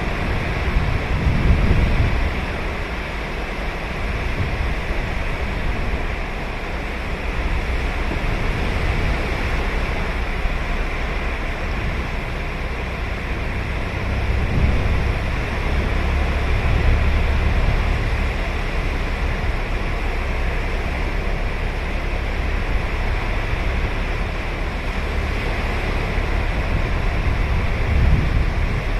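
Ocean surf breaking and washing on a sandy beach, a continuous rushing noise with heavier surges about two seconds in, midway through and near the end.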